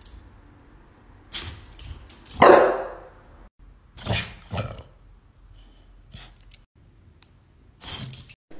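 Grey pit bull-type dog barking in short separate bursts, about six in all, the loudest about two and a half seconds in.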